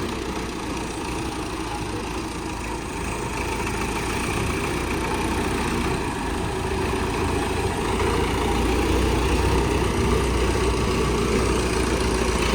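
Tractor engine running steadily, growing gradually louder over the stretch.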